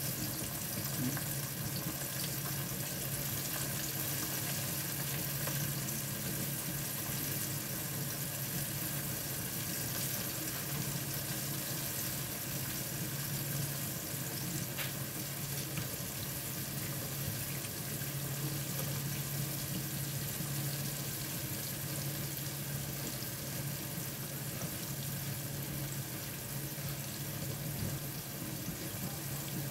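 Flour-coated chicken pieces deep-frying in hot oil in a wok, a steady sizzle with a low hum underneath.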